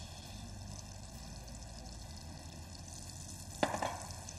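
Minced meat, onions and peppers frying in a pan with a steady sizzle. Near the end there is one short knock as fresh sliced mushrooms are tipped into the pan.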